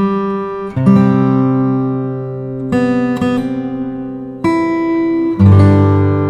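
Background music: acoustic guitar chords, each struck and left to ring out before the next, a new chord every second or two.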